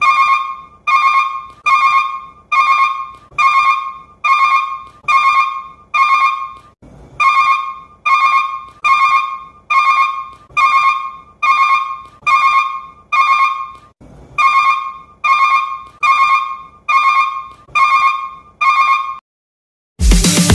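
A ringtone-like electronic tone pinging over and over, about three pings every two seconds, each one fading quickly. It pauses briefly twice, then stops shortly before electronic dance music cuts in near the end.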